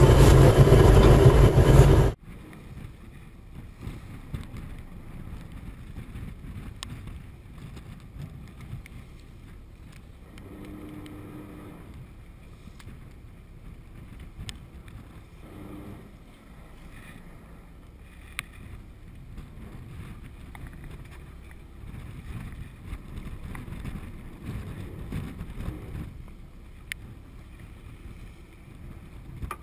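A fishing boat under way: loud engine and wind rush for about two seconds, which cuts off suddenly. After that comes a quieter, steady wash of wind and rough sea against the hull, with a few faint clicks.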